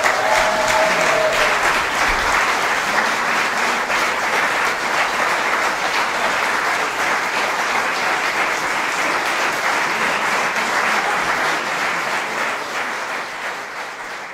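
Audience applauding steadily after a cello quartet piece ends, the clapping fading out near the end.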